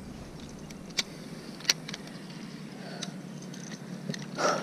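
A few sharp clicks and smaller ticks from a spinning reel being handled, with a short rush of noise near the end.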